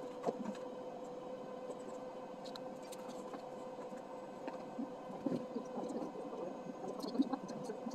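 Quiet room tone: a steady low hum with a few faint clicks and taps scattered through it.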